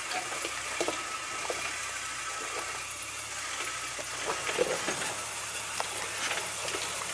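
1979 Jeep CJ7's engine running steadily at low revs, a constant low hum with hiss, and light rattles and clicks scattered through it.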